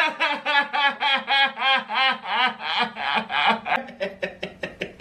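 A man wheezing in a rapid string of squeaky, pitched gasps, about three or four a second, each rising and falling in pitch. Near the end they turn into shorter, faster gasps.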